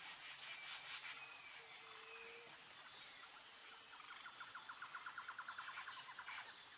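Faint outdoor ambience of birds and insects, with a steady high buzz and a short whistled note. About four seconds in comes a rapid even trill of roughly ten notes a second, lasting about two seconds.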